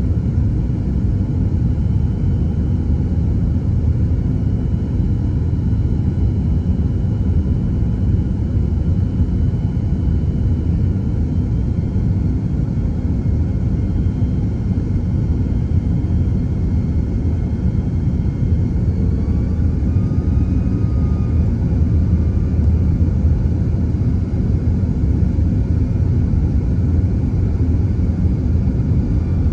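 Steady low rumble of engine and airflow noise inside an Airbus A330-300's cabin in flight, with faint high whining tones drifting above it.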